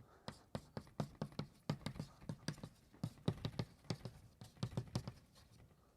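Chalk writing on a blackboard: a quick, irregular run of sharp taps and knocks, several a second, as a formula is written out.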